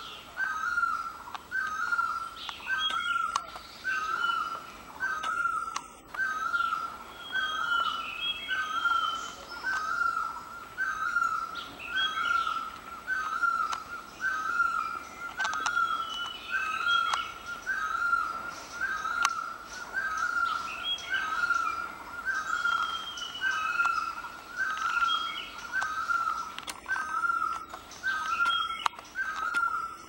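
A bird repeating a short call of one steady pitch about once a second, with a second bird's higher, falling notes breaking in now and then.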